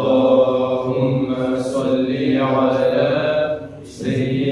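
Male voices chanting salawat (blessings on the Prophet) in Arabic, unaccompanied, in long held phrases, with a short break for breath about three and a half seconds in.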